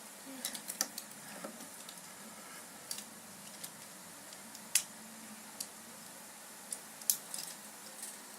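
Small plastic parts of a Tobot Mini W transforming robot toy clicking and tapping as they are handled and pressed together, a few scattered clicks several seconds apart.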